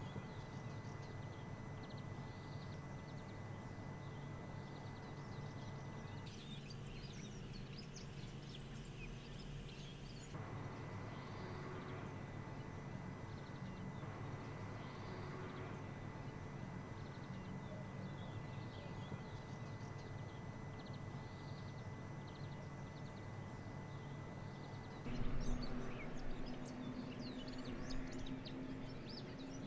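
Outdoor ambience: a steady low hum with faint, scattered bird chirps. The background changes abruptly about six, ten and twenty-five seconds in, and is a little louder just after twenty-five seconds.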